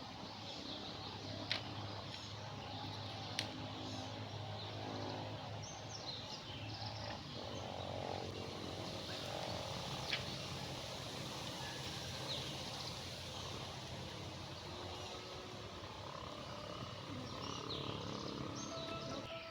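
Outdoor rural ambience: a steady background hiss with scattered high bird chirps and a drawn-out animal call through the middle, and a few sharp clicks near the start and about halfway.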